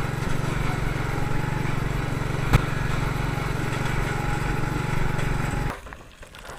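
Small engine of an off-road vehicle running steadily, with one sharp knock about two and a half seconds in; the engine sound stops suddenly near the end.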